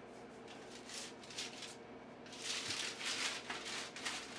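Scraping and paper rustling as roasted butternut squash halves are slid off a baking sheet with a spatula onto parchment paper, in two irregular spells, the second louder.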